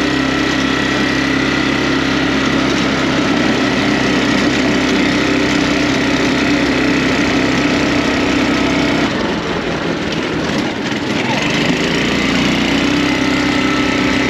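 Small engine of an off-road go-kart buggy running under way, just back in working order after a makeshift throttle-cable repair. It runs steady, eases off for a couple of seconds about nine seconds in, then picks back up.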